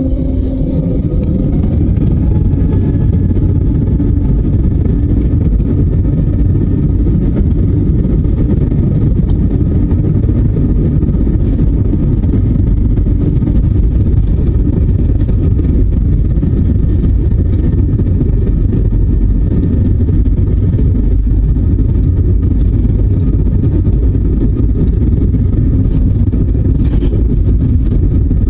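Jet airliner engines and airflow heard from inside the passenger cabin: a loud, steady, deep rumble with a faint steady whine above it. A lower hum fades out about a second in.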